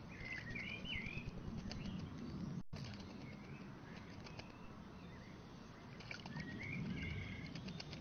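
A blackbird bathing in a shallow pool, splashing water and fluttering its wings. Another songbird sings short warbling phrases, once near the start and again near the end.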